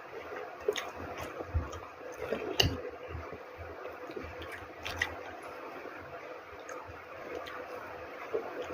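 Close-up eating sounds: wet chewing and squishing with scattered sharp snaps and clicks. The food is sambal egg with raw mustard greens and bakwan.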